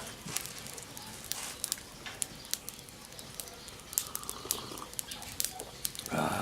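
Birds calling faintly amid scattered sharp clicks and ticks, with a short rustling burst near the end.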